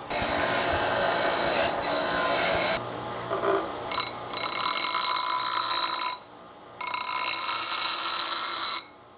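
WEN bench grinder wheel grinding a steel hatchet head: a hissing, ringing grind in three passes, with short pauses about a third and two thirds of the way through in which only the motor's low hum is left. The grinding stops near the end.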